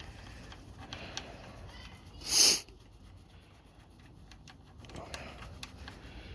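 Light clicks and ticks of metal parts being handled as strut mount bolts are started by hand. About two and a half seconds in there is one short, loud hissy burst.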